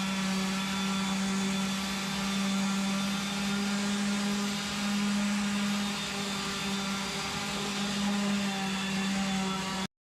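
Electric sander running steadily on wood with 120 grit sandpaper, a steady motor hum over a sanding hiss, stopping abruptly near the end.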